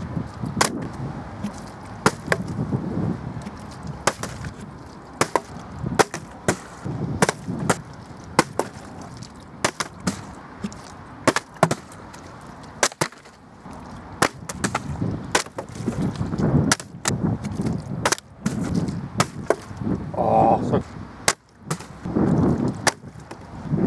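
Gusts of wind buffeting the microphone, with dozens of irregular sharp clicks and knocks.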